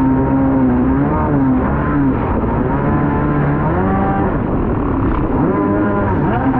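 Kawasaki 650SX stand-up jet ski's two-stroke twin engine running hard, its revs rising and falling over and over as it rides through choppy water.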